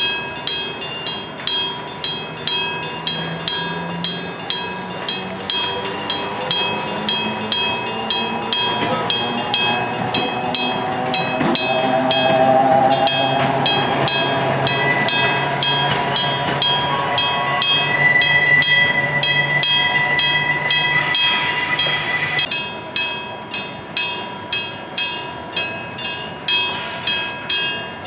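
Electric bell of a Japanese level crossing striking steadily about twice a second. From about six seconds in, the noise of a passing train rises over it, with a rising tone and then a high steady tone, until it cuts off about twenty-two seconds in and the bell strikes stand out clearly again.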